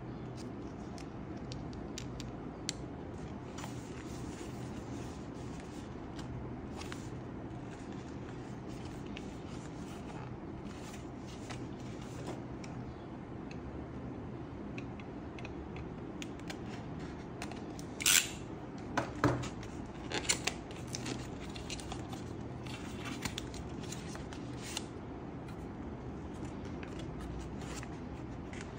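Packaging being handled and opened by hand: scattered small clicks and rustles, with a burst of louder sharp clicks and scrapes about two-thirds of the way through. A steady low hum runs underneath.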